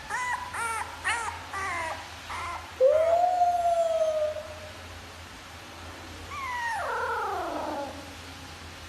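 A pet animal's cries: a run of short rising-and-falling cries, about two or three a second, then a loud long howl about three seconds in, and a drawn-out falling howl near the end.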